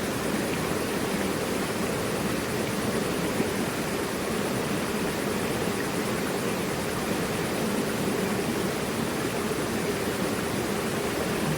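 Mountain river rushing over rocks: a steady, unbroken roar of flowing water.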